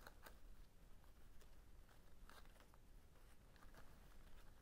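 Near silence with faint, scattered rustles and light clicks of leafy greenery being handled and fastened to an overhead bar.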